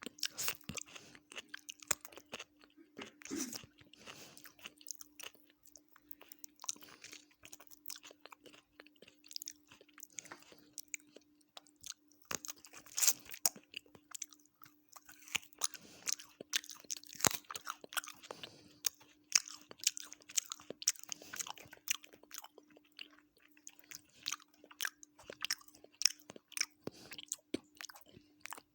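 Close-miked chewing and crunching of food, many irregular crackles and bites, over a steady faint hum.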